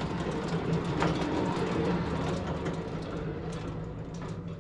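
Frontier OS23 bandsaw mill running steadily, its engine hum mixed with blade and cutting noise and scattered sharp clicks, easing slightly near the end.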